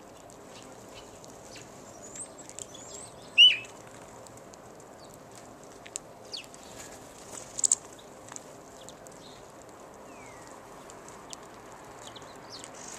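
Small songbirds chirping and twittering in short high notes, with one loud call about three and a half seconds in and a quick double call near eight seconds, over a steady low background noise.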